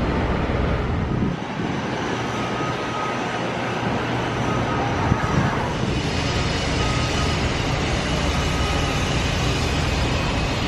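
Steady outdoor road-traffic and vehicle noise with a low rumble, with faint short beeps repeating about once a second.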